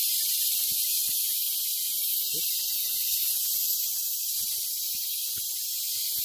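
Air hissing steadily out of a car tire as it is deflated.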